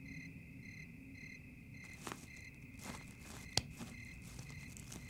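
Crickets chirping steadily, about two chirps a second, with a few faint clicks around the middle.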